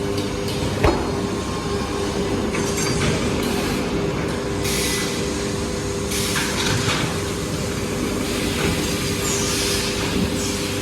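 Short-cycle laminating hot press line running: a steady mechanical hum with a constant tone, a sharp click about a second in, and several spells of hissing in the second half.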